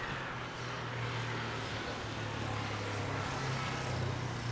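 A vehicle running with a steady low hum over general outdoor noise.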